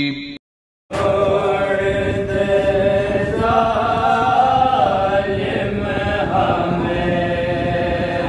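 The last word of an Arabic recitation, a short gap of silence, then men chanting a noha, a Shia lament, in a slow melodic line that carries on steadily.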